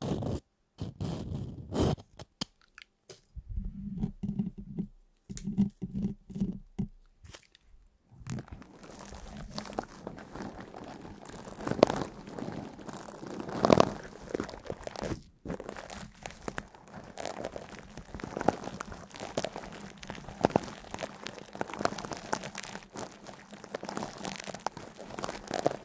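Close-up crunching and crackling, in short separate bursts at first, then a continuous dense crackle of small clicks from about eight seconds in.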